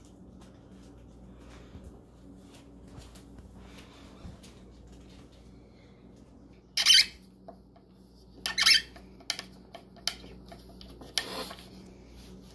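Hand screwdriver driving a screw through a plastic door catch into a cabinet panel: three short, loud, scratchy squeaks as the screw is turned in, after faint ticks of handling parts.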